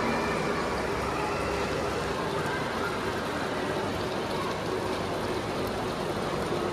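Steady rush of water from a large indoor water-table fountain, with water sheeting across the surface and spilling over the rim of the basin.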